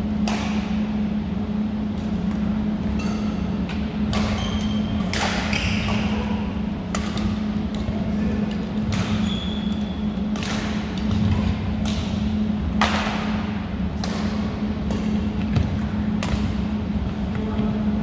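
Badminton rackets hitting a shuttlecock in a rally, sharp smacks every second or so that echo in the large gym hall, over a steady low hum.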